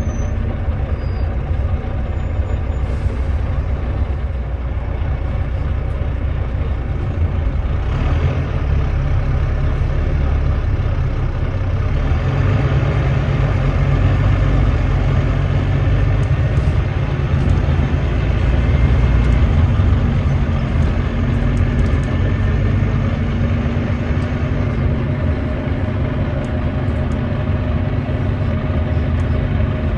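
Volvo D9B 9.3-litre diesel engine of a Volvo B9TL double-decker bus running steadily, a little louder for several seconds midway.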